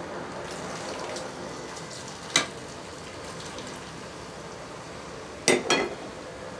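Potato sticks frying in hot vegetable oil, a steady sizzle. A sharp click about two and a half seconds in and a few more near the end as the plastic skimmer knocks the bowl and is set down on a plate.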